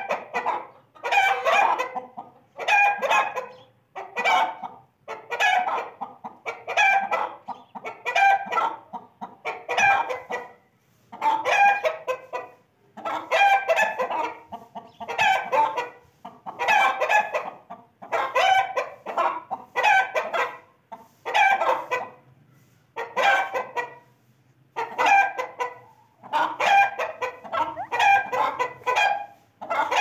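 Chicken calling over and over: short pitched calls, all alike, repeating about once a second with brief pauses between them.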